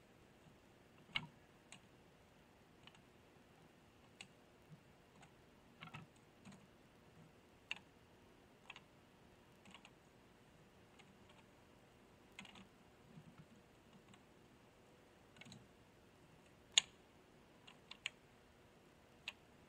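Faint, irregular wooden clacks and knocks of boards being picked up and stacked onto a hand truck, with the sharpest knock near the end.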